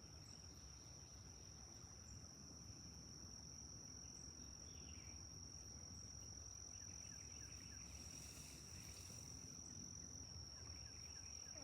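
Faint, steady high-pitched insect trill, unbroken throughout, over a low rumble of outdoor background noise.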